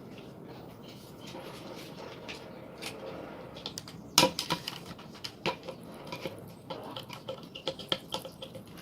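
Light clicks and knocks of small drone parts and tools being handled on a workbench. The first few seconds are quiet, then a sharper knock comes about four seconds in, followed by a run of small irregular clicks.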